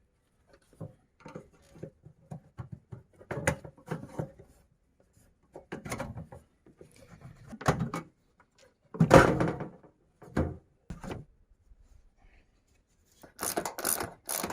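Hand tools and loose car body parts being handled: scattered knocks, clatters and rubbing, the loudest a thump about nine seconds in. Near the end comes a quick, even run of ratchet wrench clicks.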